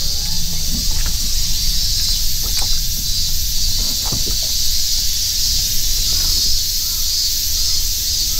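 Steady, high-pitched chorus of summer cicadas from the surrounding woods, pulsing slightly, over a low rumble.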